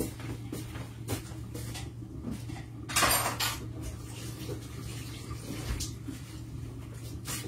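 Scattered knocks and clicks of kitchen dishes and utensils, with one louder clatter of about half a second some three seconds in, over a steady low hum.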